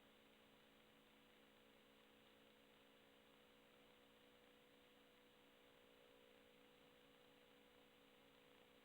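Near silence: a faint, steady hum with a few fixed tones over low hiss.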